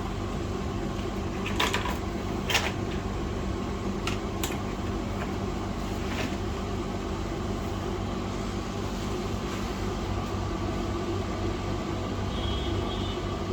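A steady electric fan hum, with a few light clicks of small tools on the board in the first six seconds.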